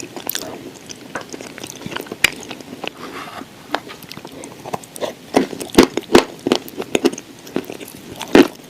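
Close-up mouth sounds of someone biting and chewing a dry, crunchy bite: irregular sharp crunches and crackles, growing denser and louder about halfway through.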